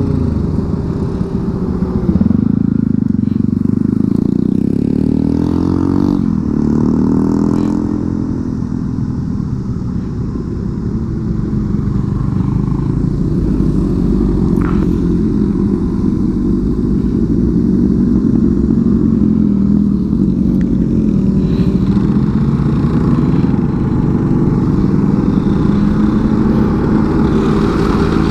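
Motorcycle engines running along a road, their pitch rising and falling as the bikes accelerate and ease off.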